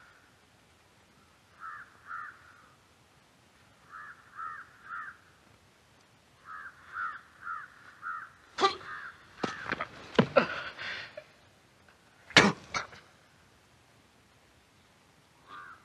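Crows cawing in short runs of two to four calls. Around the middle comes a quick flurry of blows and thuds as a man is beaten down, then one more heavy thud a little later.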